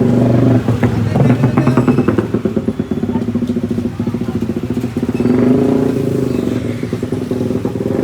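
A motorcycle engine running close by, with a fast, even firing pulse that eases off a little near the end.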